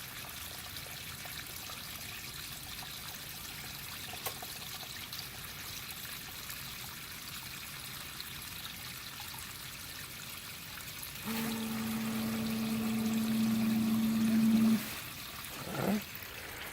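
Water trickling steadily into a sump bucket. About eleven seconds in, a 1/2 hp submersible sump pump kicks on with a steady hum, runs for about three and a half seconds, and cuts off suddenly as its float switch drops.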